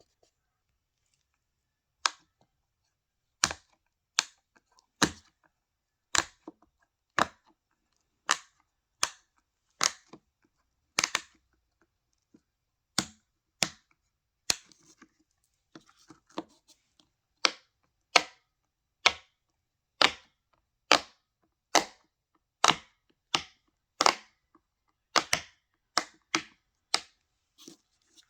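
Silicone pop-it fidget toy's bubbles being pressed one by one, each giving a loud, sharp pop. About thirty pops come at roughly one a second, after a quiet first two seconds.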